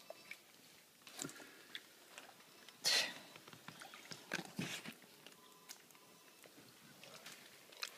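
Hands working wet mortar under water in a plastic tub: quiet, irregular small splashes and squelches, the loudest about three seconds in.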